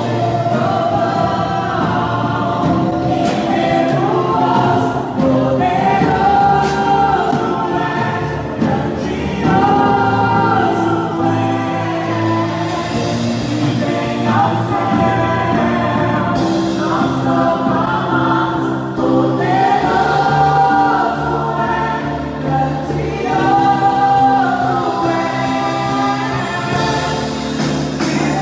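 Congregational gospel worship song: many voices singing together in phrases of a few seconds, over steady instrumental backing.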